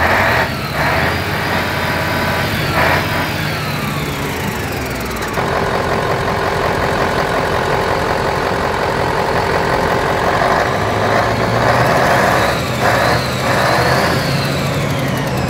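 Mercedes-Benz SK 2638 truck's V8 diesel engine running, heard close at the exhaust pipe outlet. Its pitch falls away over the first few seconds, holds steady, and rises again near the end as the engine is revved.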